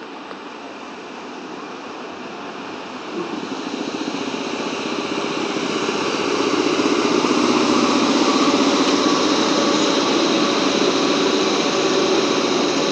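PKP Intercity EP07 electric locomotive hauling a passenger train along a platform. Its running noise grows louder as it approaches and draws level about six seconds in, then the carriages roll past steadily and loudly.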